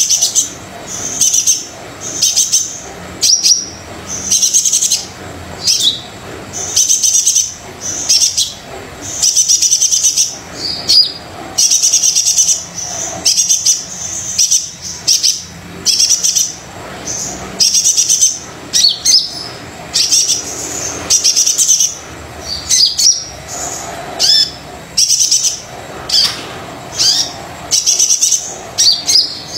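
Sunbird of the kind Indonesian keepers call kolibri dada coklat, singing vigorously: short, high, sharp chirping phrases repeated about once a second without a break.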